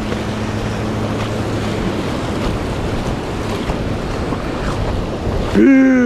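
Ocean surf breaking and washing up the beach, with wind buffeting the microphone. A low steady hum under it stops about halfway through.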